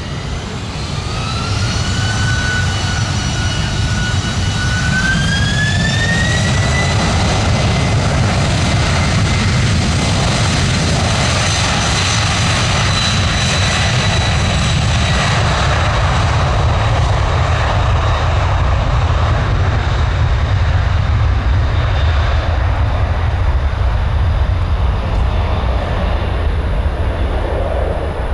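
Jet airliner's engines spooling up to takeoff power: a whine climbs in two steps over the first several seconds and then holds, over loud, steady jet engine noise that eases slightly near the end.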